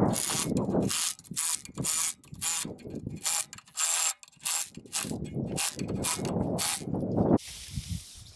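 Cordless impact driver hammering bolts tight on the belt pulley of an electric motor's shaft, in a series of short rattling bursts.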